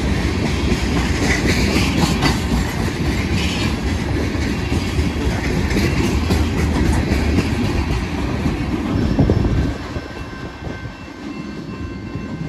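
Freight train cars rolling past: a steady rumble of steel wheels on rail with clickety-clack over the rail joints. The rumble drops away suddenly near the end.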